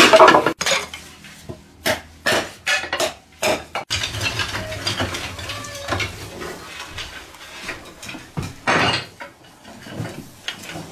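Split bamboo strips knocking and clattering together as they are split and handled: a loud knock at the start, then a run of sharp woody clacks over the next few seconds, quieter handling after, and one louder clatter shortly before the end.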